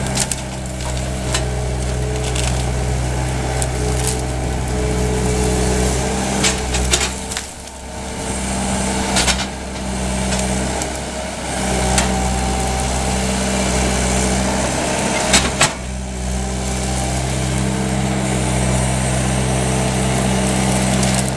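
Bobcat T300 compact track loader's diesel engine running steadily, working a grapple through brush, its sound dropping briefly about eight seconds in. Sharp snaps of breaking branches come now and then.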